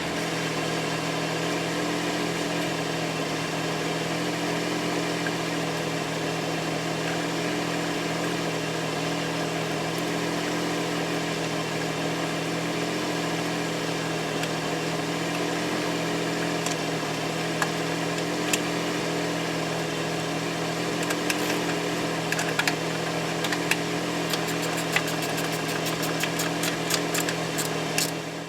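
A motor or engine running steadily with an even hum. Light clicks start about two-thirds of the way in and grow more frequent toward the end.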